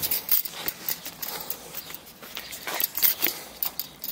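Footsteps and rustling: an irregular string of crackling clicks, with the sharpest ones shortly after the start and about three seconds in.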